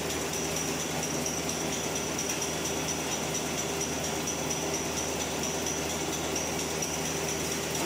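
Napkin-making machine running steadily: continuous mechanical noise with a steady high-pitched whine over a lower hum.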